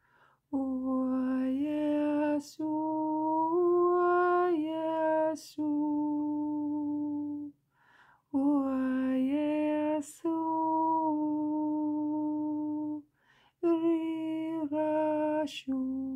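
A woman's voice singing long, steady held notes on open vowels in a slow, wordless light-language chant. The notes come in phrases of two to three seconds, with short pauses between them.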